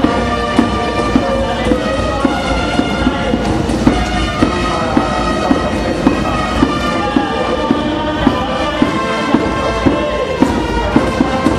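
Marching band playing a tune: a brass melody over a steady drum beat of about two beats a second.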